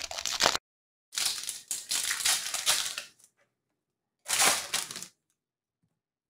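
Foil wrapper of a trading-card pack crinkling as it is handled and opened, in three bursts that each cut off sharply into silence.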